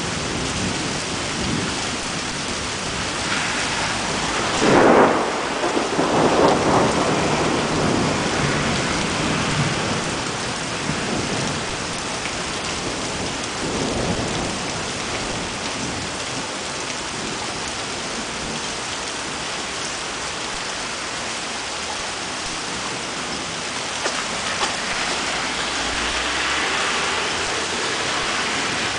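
Steady rain during a thunderstorm. About five seconds in there is a loud peal of thunder that rumbles on for a couple of seconds, and a weaker rumble comes about halfway through.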